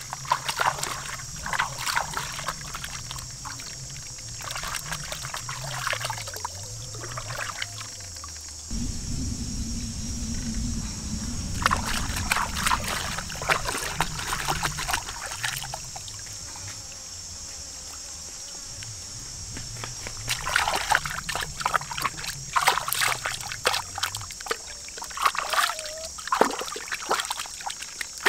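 Hands splashing and sloshing in shallow stream water while washing mushrooms and raw meat, in several bouts with a quieter stretch in the middle. A steady high-pitched drone runs underneath.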